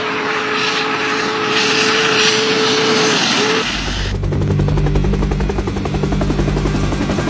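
Steam whistle of the Big Boy 4014 locomotive blowing a steady chord over steam hiss, cutting off about three and a half seconds in. A helicopter's rotor and engine then take over with a low, rhythmic beat.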